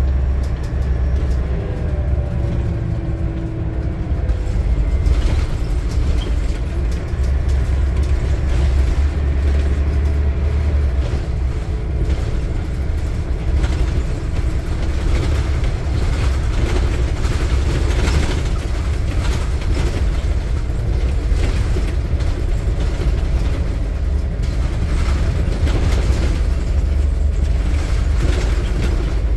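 Scania bus engine and drivetrain heard from inside the passenger saloon while under way: a steady low drone whose pitch rises and falls with the bus's speed over the first few seconds. Road noise and frequent short knocks and rattles from the body follow as it keeps driving.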